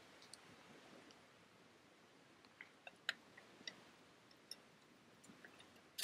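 Near silence with faint, scattered crackles and pops from a small wood campfire, the sharpest pop about three seconds in.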